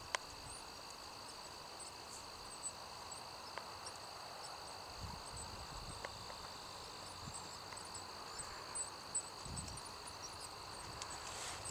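Steady, high insect chirring with a few faint, scattered thuds of a horse's hooves trotting on a soft dirt arena.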